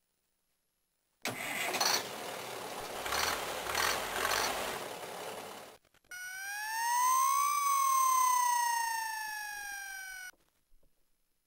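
Houseware Toys Fireman Sam Jupiter fire engine toy playing its electronic sound effects. After about a second of silence comes an engine-start rumble with a few pulses, lasting about four seconds. Then a siren rises in pitch and falls again over about four seconds and cuts off.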